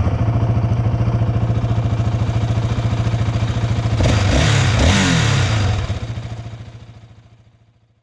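Yamaha Raptor 700R ATV's single-cylinder four-stroke engine running just after starting, with a quick rev about four seconds in, then fading out.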